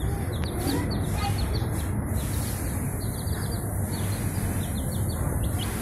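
Baby chicks peeping: rapid runs of short, high cheeps in clusters, over a steady low rumble.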